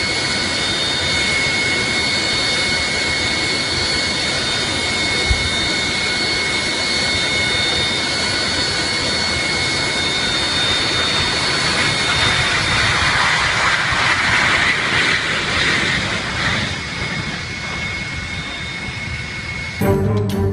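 Jet aircraft engines running: a steady rushing noise with a high, even whine over it. The rushing swells about twelve seconds in, eases again, and cuts off suddenly near the end.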